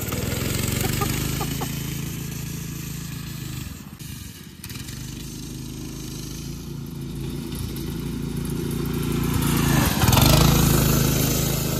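Go-kart's small engine running steadily. It drops away about four seconds in, then grows louder, loudest near the end as the kart comes close.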